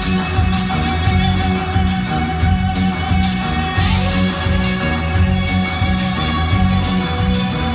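Live band music with a steady beat and a heavy bass line, with no singing.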